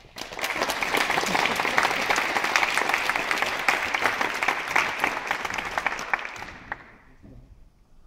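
Audience applauding: the clapping starts abruptly, holds steady, then dies away about seven seconds in.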